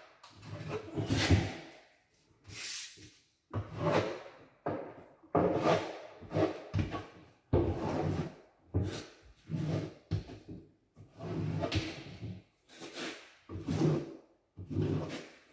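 Hand trowel scraping tile mastic across the backsplash wall in repeated strokes, about one a second.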